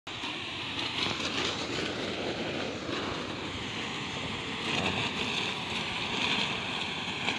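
Hose-fed spray gun jetting a fine mist into citrus trees: a steady hissing rush that swells a little around five and six seconds in.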